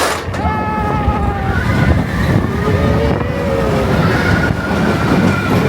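Roller coaster train running along its track, heard from on board: a steady low rumble with drawn-out, slowly gliding squeals above it.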